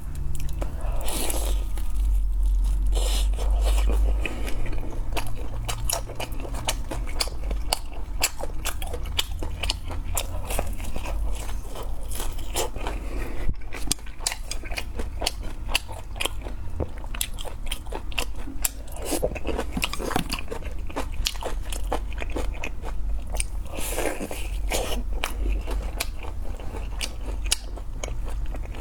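Close-miked eating of a crisp pan-fried Chinese chive pocket: repeated crunchy bites and wet chewing with many irregular crackles, over a low steady hum.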